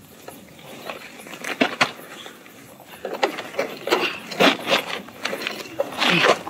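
A fallen 1989 Honda Transalp motorcycle being hauled upright off a gravel dirt road: irregular clicks, knocks and scrapes of its metal and plastic parts, with boots scuffing. The handling noise grows busier from about halfway, and the loudest scrape comes near the end as the bike comes up.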